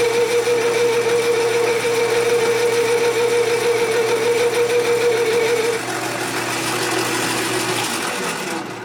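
Metal lathe turning a bar, its cutting tool taking a pass with a steady pitched ring over the motor hum, typical of the tool starting to chatter. About six seconds in the ring drops lower and softer, and the cut dies away near the end.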